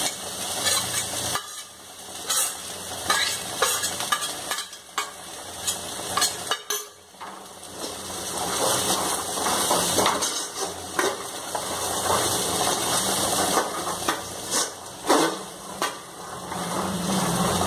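Metal spoon stirring and scraping cooked chickpeas and grated dry coconut around a metal kadai, with repeated clinks and scrapes of the spoon against the pan.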